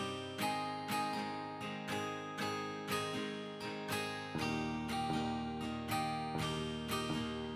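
Background music: an acoustic guitar strummed in a steady rhythm, about two strums a second, changing chord about halfway through.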